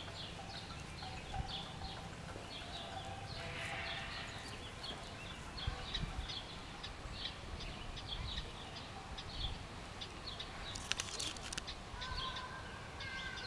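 Prairie dog alarm calls: a steady series of short, high chirps, about two a second. A brief burst of sharp clicks about eleven seconds in.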